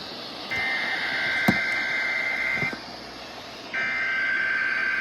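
NOAA Weather Radio SAME alert header for a required weekly test: buzzing digital data bursts about two seconds long, a second apart, over radio static. One burst runs through the middle and the next starts near the end, with a sharp click partway through the first.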